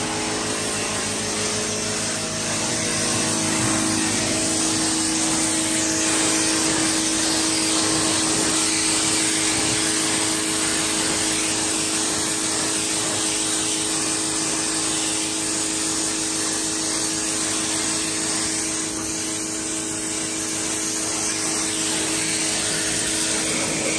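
Pressure washer running steadily, its jet spraying onto a concrete floor: a steady motor hum under the hiss of the spray.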